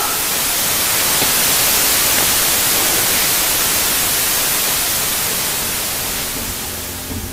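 Loud static hiss, white noise spread evenly across all pitches like a dead video signal, cutting in abruptly and slowly fading near the end.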